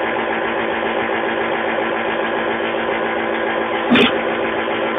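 Steady electric machine hum with a sharp knock about four seconds in.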